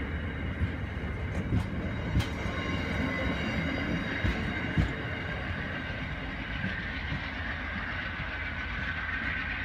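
Amtrak passenger cars rolling past close by, a steady rumble with the wheels knocking sharply over rail joints several times in the first five seconds. Then the rear of the train draws away.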